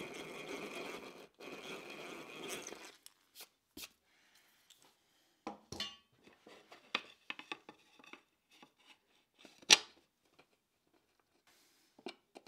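Electric drill boring a hole into a cherry board in two runs of about a second and a half each with a short break, the bit chewing through the wood. Then scattered light clicks and knocks of tools and wood being handled, the loudest a sharp knock about ten seconds in.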